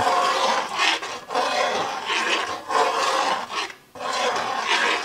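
Metal spoon scraping and rubbing around the bottom of a metal pot of gravy stock, in repeated strokes about once a second. The flour-and-oil paste is being stirred in.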